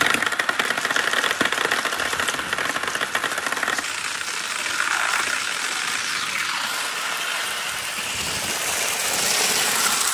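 Dozens of glass marbles rolling down wet marble-run chutes, a dense continuous clatter of clicks as they knock against each other and the chute walls.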